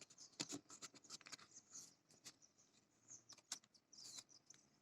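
Faint crackles and clicks of a cut cardboard toilet-paper tube being rolled up tighter by hand.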